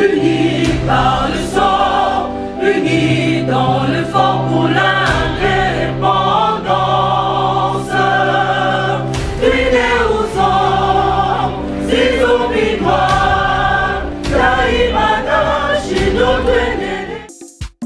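Intro music of a choir singing in a gospel style over steady low held notes, cutting off shortly before the end.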